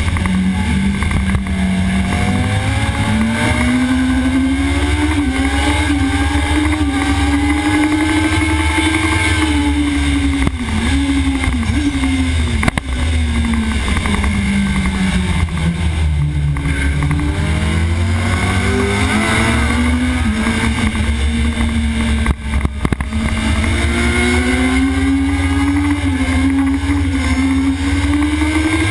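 Sport motorcycle engine heard on board at racing speed, revs rising and falling through corners and gear changes, with wind rush. Pitch dips low partway through, then climbs steadily as the bike accelerates hard down a straight near the end.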